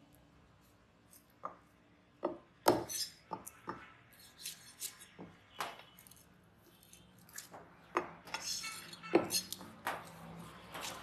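Large knife knocking, tapping and scraping on a wooden chopping block while a black pomfret is trimmed and cut: irregular sharp knocks and clicks, starting about a second and a half in.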